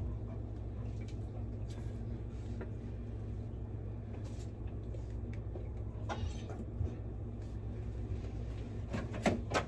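Steady low hum of room tone, with brief rustles and light taps about six seconds in and a few sharper ones near the end.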